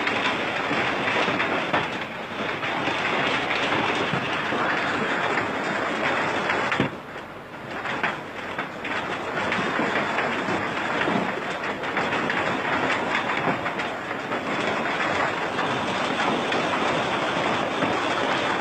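Heavy hailstorm: hailstones falling hard, a dense continuous patter of many small impacts, briefly dropping in level about seven seconds in.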